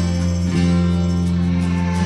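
Background music with guitar over sustained low bass tones.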